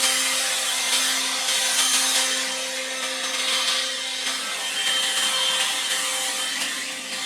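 Leaf blower running steadily: a motor hum over a wide rush of air.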